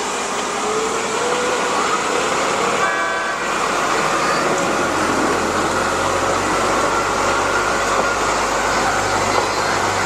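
Railway track-maintenance motor car sounding its horn once, briefly, about three seconds in, over the steady noise of its engine running; a low engine hum grows stronger in the second half.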